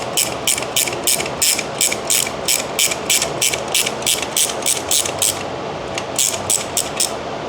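Socket ratchet clicking at about four clicks a second as it turns a 17 mm nut on a light-mount bracket's carriage bolt. It pauses a little after five seconds in, then clicks a few more times.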